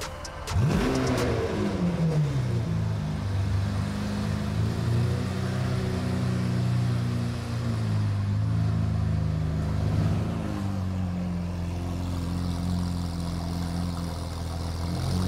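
Lamborghini Aventador's V12 starting up: a sharp rev flare about half a second in that falls away, then a steady idle.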